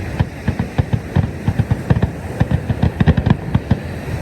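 Fireworks going off: an irregular run of booms and pops, several a second.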